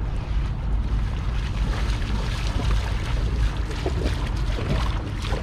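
Legs wading through shallow water, splashing in irregular strokes from about a second and a half in, over a steady rumble of wind on the microphone.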